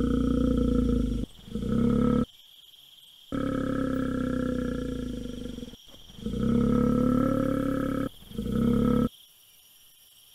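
Bear growling: a string of long, deep growls, each one to two and a half seconds, with short pauses between and a longer pause near the end.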